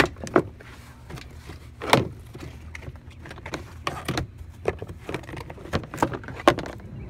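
Plastic door sill trim panel of a third-generation Honda Odyssey being pulled up by hand: a string of sharp snaps and clicks as its retaining clips pop free, with plastic knocking in between. The loudest snaps come right at the start and about two seconds in.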